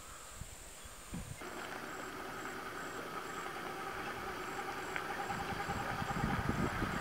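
A vehicle engine running steadily, coming in abruptly about a second and a half in and slowly growing louder; before that, only faint outdoor background.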